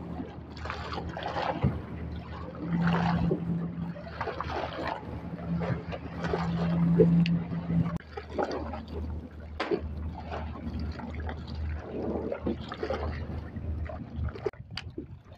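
Small boat's engine idling with a low steady hum that drops lower about eight seconds in, while water slaps and splashes irregularly against the hull.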